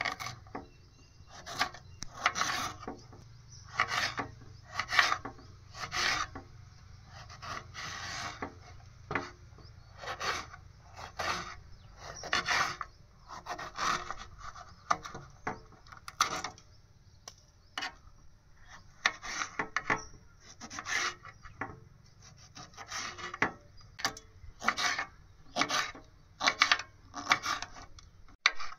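Repeated rasping, scraping strokes, irregular, about one or two a second.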